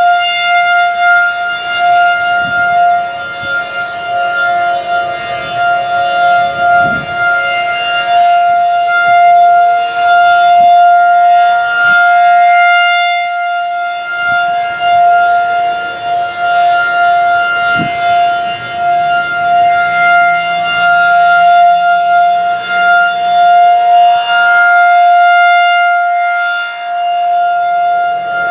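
Federal Signal 2001-SRN rotating electromechanical warning siren sounding a steady single tone during a test. The pitch holds steady while the loudness swells and fades as the siren head rotates, with deep dips about every 13 seconds.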